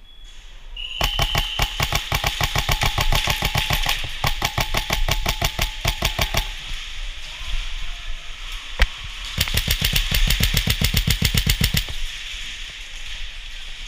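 Airsoft electric rifle firing on full auto: a rapid, even chatter of shots lasting about five and a half seconds, one single sharp crack, then a second burst of about two and a half seconds.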